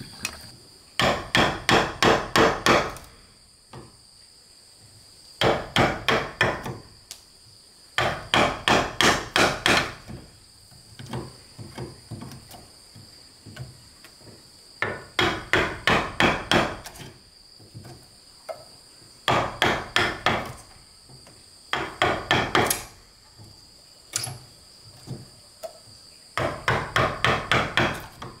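Hammer driving a wood chisel into a wooden door post, cutting a mortise: quick runs of sharp strikes, about four a second, each run of six to ten blows broken by short pauses. A steady high insect drone runs underneath.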